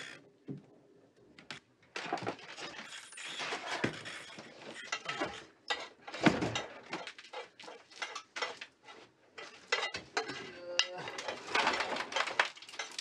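Kitchen clatter: dishes, metal pots and utensils clinking and knocking irregularly, with stretches of rustling in between.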